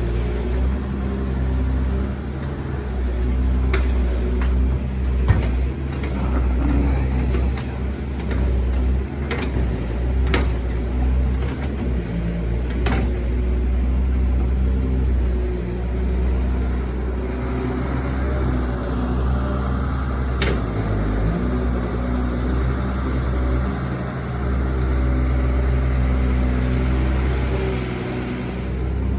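Doosan 140 excavator's diesel engine running steadily, with several sharp knocks in the first half and a rushing hiss for several seconds in the second half.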